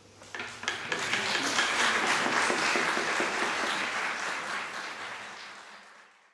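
Audience applause: a few scattered claps, swelling within about a second into full clapping that thins out near the end and cuts off suddenly.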